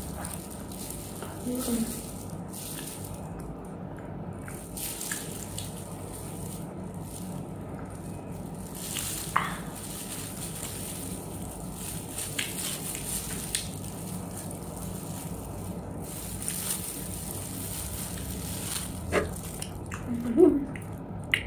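Eating sounds: soft chewing of an ice cream sandwich and the crinkle of clear plastic food-handling gloves, with small scattered clicks over a steady background hum.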